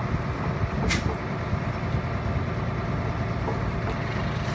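Boom truck's engine running steadily at low revs, with a single sharp click about a second in.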